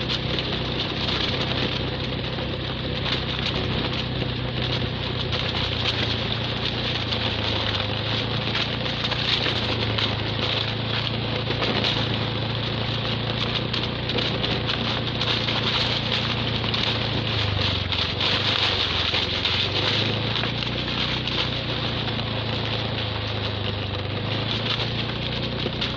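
Motorcycle engine running steadily as the bike rides along, over a steady hiss of wind and road noise. The engine note dips a little about two thirds of the way in, then picks up again.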